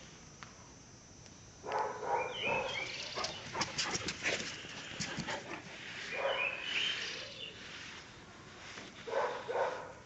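Caucasian Shepherd Dog vocalizing in short bursts: a cluster starting about two seconds in, another around six seconds, and two brief ones near the end, with sharp clicks among the first cluster.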